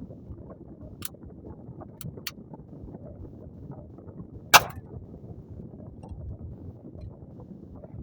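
A single gunshot through a 3D-printed PLA suppressor: one sharp report about four and a half seconds in, dying away quickly. Wind rumbles on the microphone throughout, with a few faint clicks in the first half.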